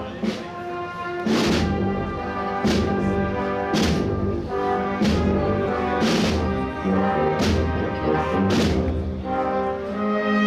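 Procession band playing a slow march: sustained brass chords over a bass drum and cymbal stroke about every 1.2 seconds.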